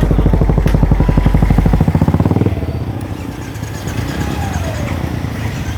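An engine running with a rapid, even beat that drops away about two and a half seconds in.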